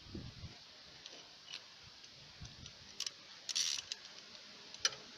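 Light metallic clicks and ticks of a car jack being set under the jacking point, with a low thud at the start, a short scraping rasp a little past halfway and a few sharp clicks near the end.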